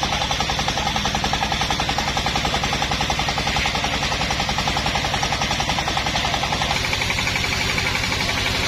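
Engine of a home-built chainsaw mill running hard with a rapid, even pulsing. About seven seconds in the note changes and a higher whine comes in.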